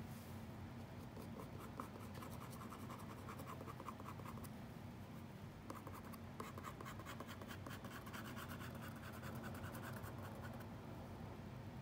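Rapid short scratching strokes of a hand-held drawing tool on paper. The strokes pause briefly a little before halfway and stop shortly before the end.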